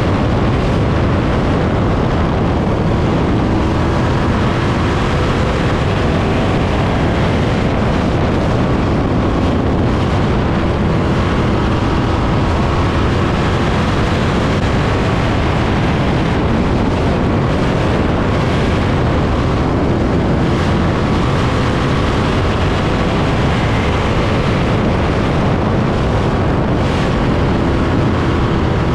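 The 305 cubic-inch V8 of a winged dirt sprint car running at speed around the track, heard from the cockpit: loud and steady throughout.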